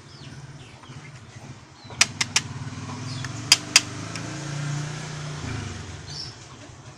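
Scissor points clicking against a tempered glass screen protector: three quick sharp clicks about two seconds in, then two more about a second and a half later. Underneath, a motor vehicle's engine hum swells and fades as it passes.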